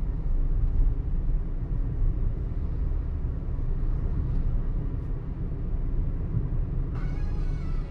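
Steady low rumble of a car driving at road speed: engine and tyre noise.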